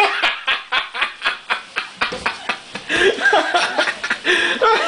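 People laughing hard in quick, rhythmic bursts of about five a second, then breaking into higher, wavering laughter from about three seconds in.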